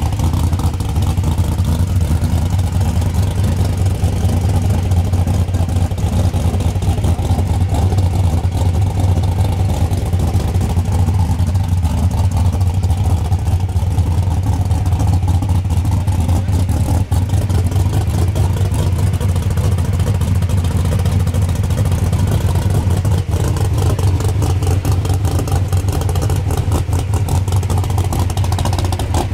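Supercharged engine of a 1941 Willys gasser idling steadily, a loud, even low rumble.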